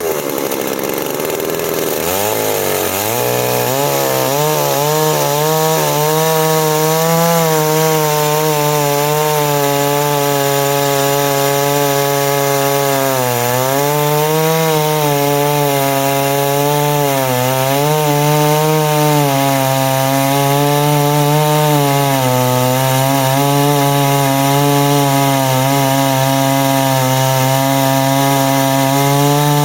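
Stihl 660 two-stroke chainsaw running hard at high revs. Its pitch drops sharply at the start, then holds high and wavers throughout, sagging twice in the middle.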